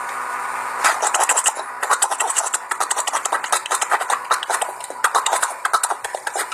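Vocal beatboxing into a headset microphone: a held buzzing tone for under a second, then a fast run of sharp mouth clicks and hissing hi-hat sounds, several a second.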